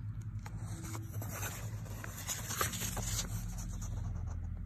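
A paperback book's page being turned: soft paper rustling with a few light clicks, over a low steady hum.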